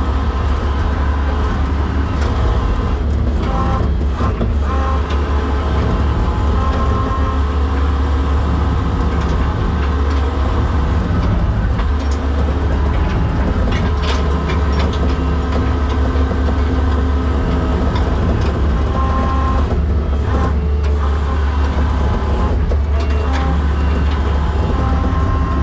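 Skid steer engine running steadily under load as it powers its winch attachment, a constant low hum with steady tones above it.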